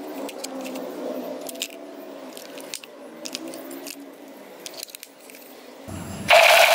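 Small plastic clicks and rattles as batteries are fitted into a toy space pistol and its battery cover is closed. Near the end the toy gun's electronic sound effect suddenly starts, loud and steady, a buzzing blend of held tones with a fast rattle.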